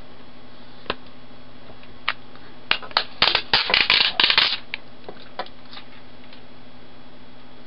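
Hard plastic packaging clicking and crackling as a moulded plastic car-dock plate is worked free of its clear plastic tray: a few single clicks, then a dense run of clicks and crackles in the middle, then a few scattered ticks.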